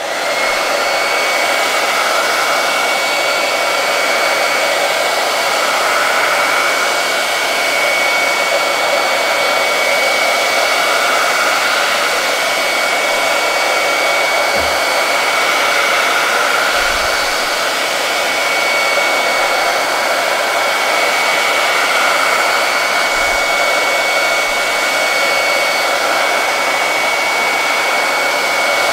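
Handheld hot-air dryer running steadily, with a constant high motor whine over the rush of air, drying freshly brushed paint.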